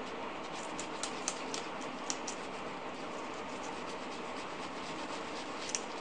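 Isopropyl wipe being rubbed over a chip on a circuit board, giving light scratchy ticks that cluster in the first couple of seconds, with one more near the end, over a steady background noise.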